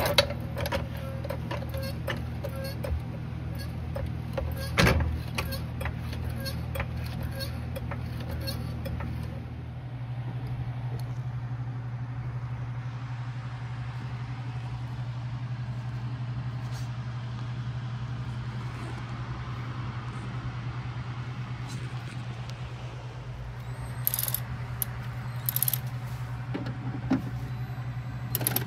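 A floor jack being pumped under a car: a run of sharp metallic clicks and one louder knock over a steady low hum for about the first ten seconds. After that the hum goes on alone, more quietly, with a few tool clicks near the end as fender-liner screws are undone.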